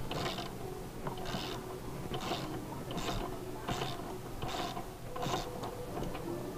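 17 mm socket ratchet clicking in repeated short strokes, about one burst of clicks every 0.8 s, as a motorcycle's front axle bolt is run loose.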